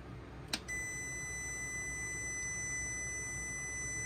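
A click, then a multimeter's continuity beeper sounding one steady high beep across the lab power supply's output terminals: the output is shorted.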